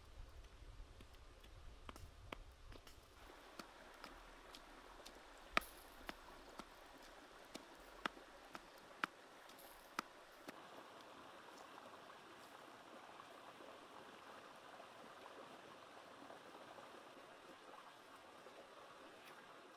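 Faint, steady sizzling of a catfish roasting on a stick over a wood fire, with scattered sharp pops and crackles through about the first half that then die away, leaving an even hiss.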